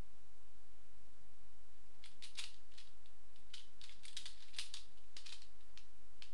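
Pyraminx puzzle being turned rapidly by hand: a quick, irregular run of plastic clicks and clacks as its pieces snap round, starting about two seconds in.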